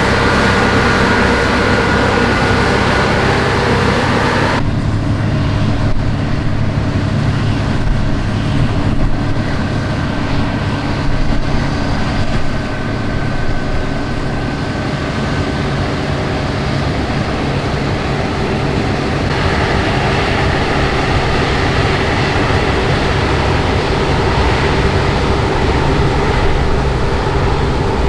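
Combine harvester running steadily at work, a heavy diesel engine with machinery noise, the sound changing abruptly about four and a half seconds in and again shifting about two-thirds of the way through.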